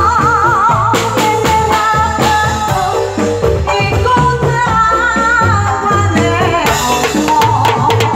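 Music: a song with a sung voice that wavers in pitch, over bass, drums and percussion.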